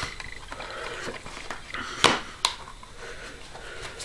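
Plastic DVD case being handled, with two sharp clicks about half a second apart near the middle, over faint rustling.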